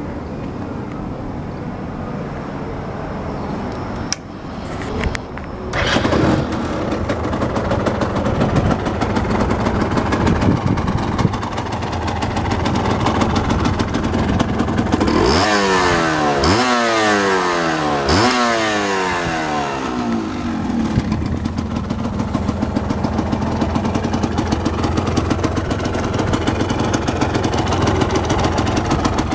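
Yamaha Lanza's liquid-cooled two-stroke single idling, blipped up three times in quick succession about halfway through, each rev rising sharply and falling back, then settling to a steady idle again.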